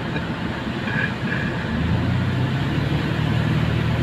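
Car driving on a wet road, heard from inside the cabin: a steady low engine and road drone with tyre hiss, the low hum growing stronger about halfway through.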